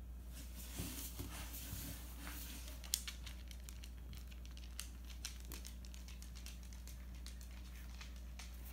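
Soft fabric rustling and crinkling with many small clicks, busiest in the first three seconds and sharpest in one click just before the three-second mark, then only a few scattered clicks over a steady low hum.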